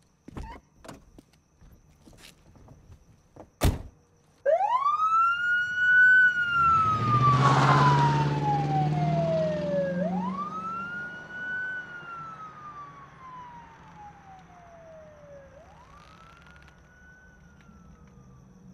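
A police car siren wails, rising quickly and falling slowly three times and fading as the car moves away, with a low engine rumble under the first cycle. A single sharp thump comes just before the siren starts.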